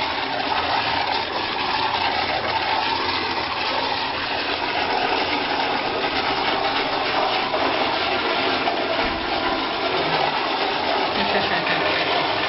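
A powerful toilet flushing and refilling: a steady, loud rush of water that carries on without a break.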